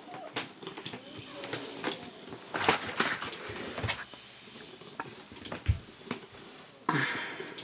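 An English bulldog puppy mouthing and gnawing the plastic base of an office chair, heard as scattered clicks and knocks. Louder scuffling bursts come about three seconds in and again near the end, and there is a single dull thump in between.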